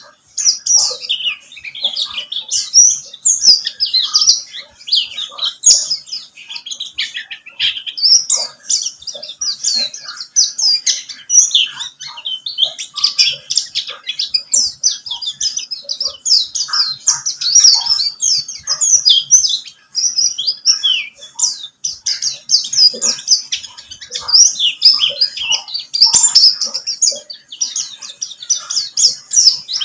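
Pleci buxtoni white-eye singing a fast, unbroken high twittering song of quick chirps and trills, the kind of song played as a lure to set other white-eyes singing.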